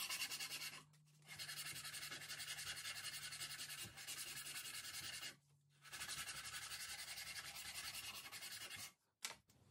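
A strip of sandpaper is pulled back and forth around a cricket bat handle, shoeshine-style, to sand down the bottom-hand grip. It makes rapid, rasping rubbing strokes in three runs, with short pauses about a second in and again around five and a half seconds in.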